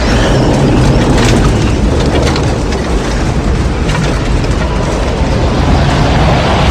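Tornado sound effect: a loud, steady rumble of howling wind, heaviest in the low end, with scattered crackles in the first few seconds.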